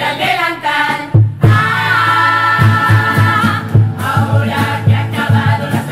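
A song playing: singing voices over a steady beat, with one long held note about midway.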